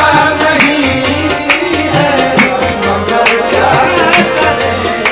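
Qawwali music: hand drums beat a steady rhythm, about one strong stroke a second with lighter strokes between, under held melodic notes and a singing voice.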